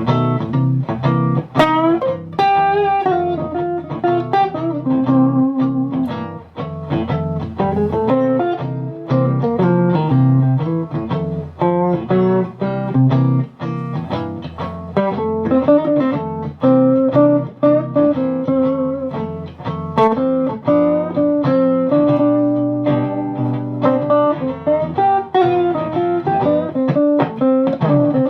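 Electric guitar playing a continuous run of single melodic notes over held lower notes.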